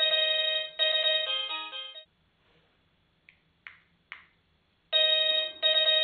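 A plug-in wireless doorbell chime playing an electronic melody of bright, clear notes, which stops about two seconds in. Three faint clicks follow as the bell push's button is pressed, and the chime starts the melody again near the end.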